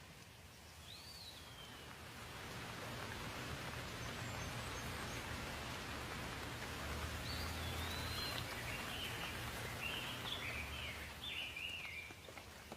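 Rain falling in a steady hiss that swells for most of the stretch and eases near the end, with a bird giving one rising-and-falling call about a second in and a run of short chirps in the second half.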